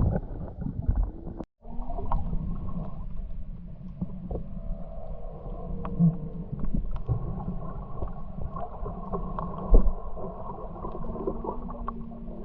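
Wind on the microphone for about a second and a half, then, after a cut, muffled underwater sound: a steady low hum with faint held tones and scattered small clicks and crackles.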